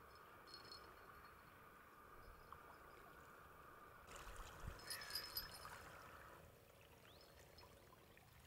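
Near silence: faint riverbank ambience, with a slightly louder soft rustle about halfway through.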